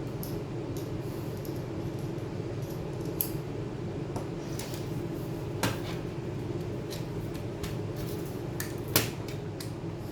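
Scattered light clicks and taps of small tools and parts being handled during laptop disassembly, the sharpest about nine seconds in, over a steady low hum.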